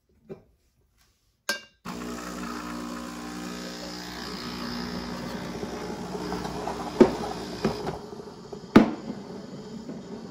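Breville Barista Express steam wand purging: a click, then a steady hiss with a whistling tone for about six seconds that cuts off sharply. Milk jugs clink twice near the end.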